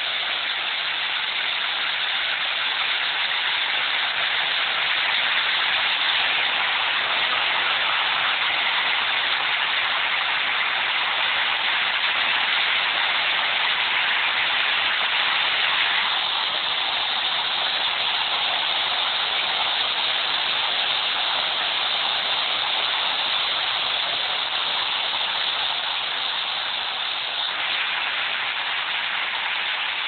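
Water falling steadily over the rocks of an artificial rock waterfall, a constant splashing hiss; its tone shifts slightly about halfway through.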